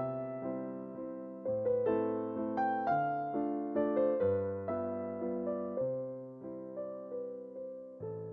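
Background music: a soft piano melody, notes struck and left to fade, with a slow bass line.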